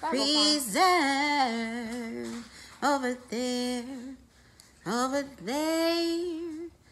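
A woman singing in a drawn-out, sing-song voice: several phrases of long held notes that slide up and down, the word "freezer" sung near the start.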